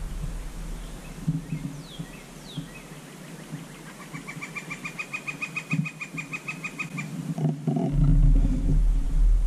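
Bird calls: two quick falling chirps, then a rapid, even run of about two dozen short pitched notes lasting about three seconds. A low rumble comes in near the end.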